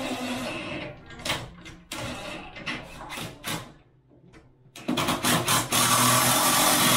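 Cordless drill running in several short bursts, then a longer steady run of about two seconds near the end.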